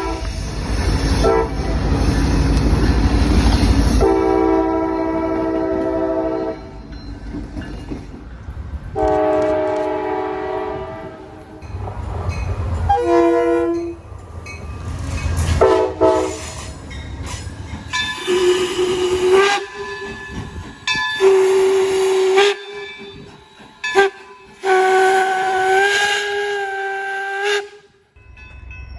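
Train air horns sounding about ten blasts, long and short, some holding several notes at once, with a train rumbling past loudly in the first few seconds. From around the middle on, the horn's tone is a different one, closer to a single note.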